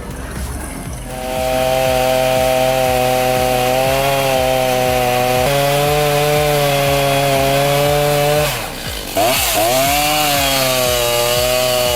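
Chainsaw cutting into wood at steady high revs while bucking a storm-felled oak. About eight and a half seconds in, the revs drop and the engine note dips sharply, then climbs back as the cut carries on.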